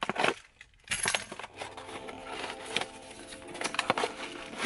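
A small cardboard parts box being torn open: packing tape and cardboard snap sharply a few times near the start, then crackle and rustle as the flaps and paper packing are pulled apart.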